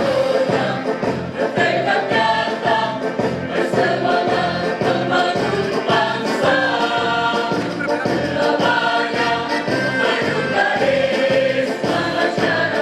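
A choir singing a march song in full voice over a steady rhythmic beat.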